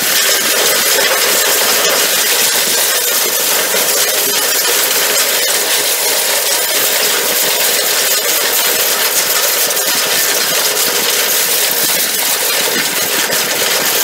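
Hammer mill running empty, with no material being fed in: a steady, loud, even machine noise with no distinct impacts.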